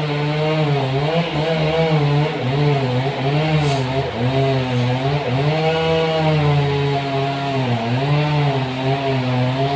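Engine-driven sawmill running while sawing trembesi (rain tree) wood. The engine note rises and falls again and again as the cut loads it.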